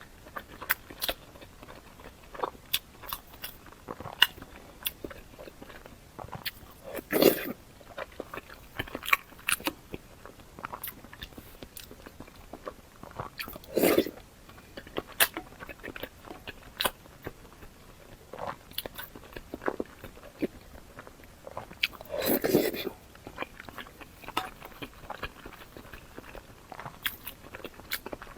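Close-miked eating: steady chewing with crunchy bites and wet mouth clicks, and three louder bursts spaced about seven seconds apart.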